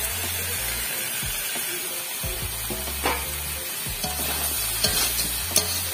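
Spiced crab curry sizzling in hot oil and a little water in a kadai, with a spatula stirring and knocking against the pan a few times.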